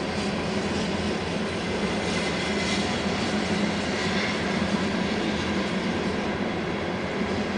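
Freight train of ballast hopper cars rolling past, a steady noise of steel wheels running on the rails.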